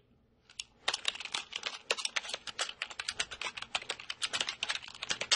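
Rapid typing on a computer keyboard, about six to seven keystrokes a second. A couple of lone keystrokes come first, the steady run starts about a second in, and it cuts off abruptly at the end.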